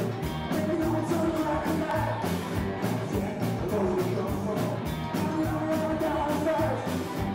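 Live rock and roll band playing: electric guitar, upright double bass and drum kit keeping a steady beat, with a male lead singer over them.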